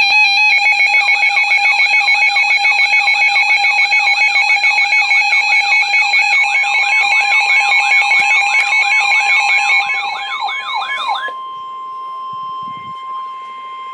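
Loud electronic emergency-alert alarm: steady tones layered with a fast warbling tone that sweeps up and down about three times a second. The warble stops about eleven seconds in, leaving a single steady tone.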